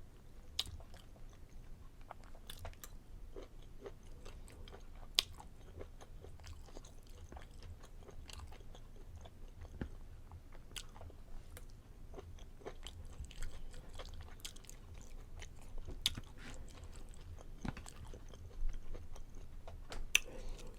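A person chewing and biting food close to the microphone, with irregular sharp wet mouth clicks and smacks.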